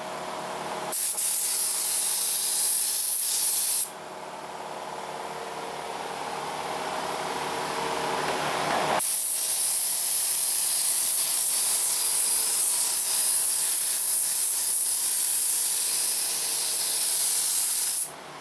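Gravity-feed paint spray gun spraying primer: a steady hiss of air and atomised paint in two long passes, one of about three seconds near the start and one of about nine seconds from the middle on. Between the passes there is a quieter steady hum.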